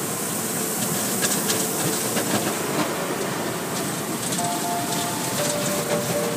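Automatic car wash heard from inside the car: water spraying and splashing steadily over the windshield and body, with the wash machinery running, and a patter of droplets striking the glass.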